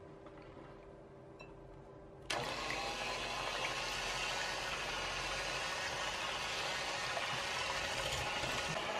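Electric hand mixer switched on about two seconds in, its beaters then whirring steadily through raw egg whites in a glass bowl as they begin to whip for meringue.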